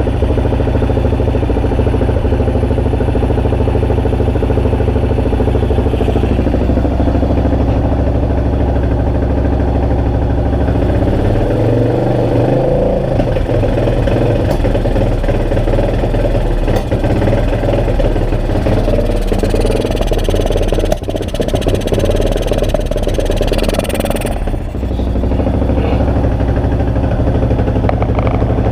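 Yamaha XT600E's air-cooled single-cylinder four-stroke engine running at a steady idle, then turning uneven and unsteady about a third of the way in, with a couple of brief drops in level, before settling back to a steady idle near the end. The unevenness is the misfire and bogging the owner is trying to cure.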